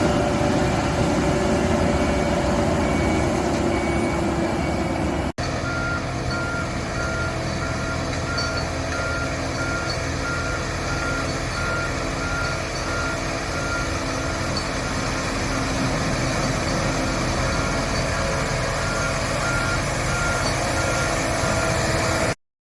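Heavy road-construction machinery running, with a reversing alarm beeping in a steady rhythm over the engine noise after a brief break about five seconds in. The sound cuts off abruptly near the end.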